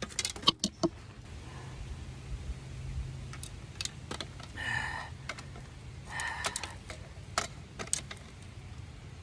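A man breathing hard after exertion, with two heavy breaths in the middle, among sharp clicks and knocks of handling, several of them near the start.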